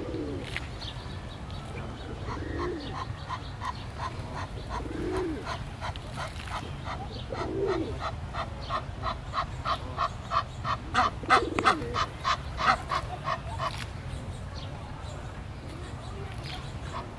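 Birds calling: a long run of evenly spaced, repeated calls, about two or three a second, that grow louder and then stop near the end, with a lower cooing call every two to three seconds, over a steady low rumble.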